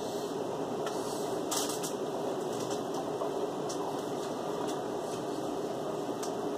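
A steady mechanical hum fills the room, with a scattering of faint short clicks and crunches of cherries being eaten.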